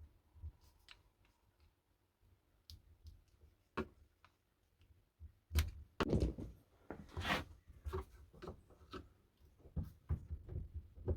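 Scattered clicks, then knocks and thunks from about halfway through, as the stuck wooden handle of a Millers Falls ratcheting screwdriver is worked loose.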